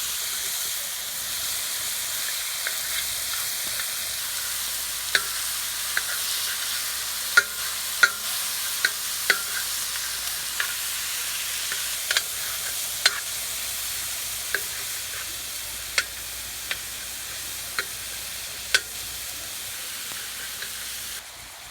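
Chicken pieces sizzling in hot oil in a wok, a steady hiss with sharp clicks scattered through it.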